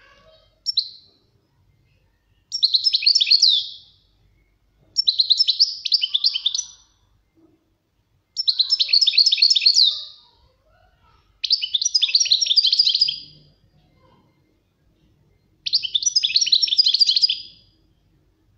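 European goldfinch singing: a short call just under a second in, then five phrases of rapid high twittering notes, each about one and a half to two seconds long, with pauses between them.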